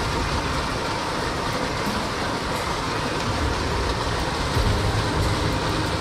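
Steady rush of a mountain stream's flowing water, with brief low rumbles a couple of times past the middle.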